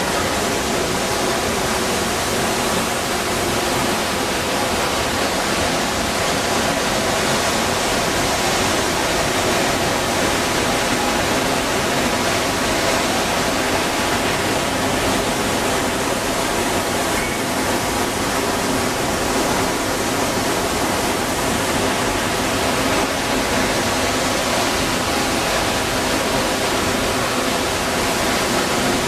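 Ponytail Falls in full spring flow, its water plunging into the pool below: a loud, steady roar of falling water.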